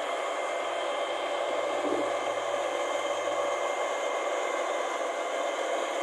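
Rice combine harvester running steadily while harvesting: an even whirring machine noise with a faint high whine, its low hum fading out about two-thirds of the way through.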